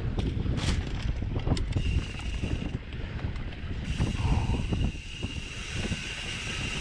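Mountain bike ridden over a wet, rough dirt trail: tyre rumble, rattles and knocks from the bike over bumps, and wind buffeting the microphone. A steady high buzz comes in briefly about two seconds in, and again from about four seconds in, lasting to the end.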